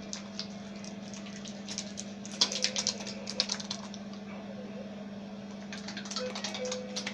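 Soapy hands being rubbed together, giving quick wet crackling clicks in two spells, about two seconds in and again near the end, over a steady low hum.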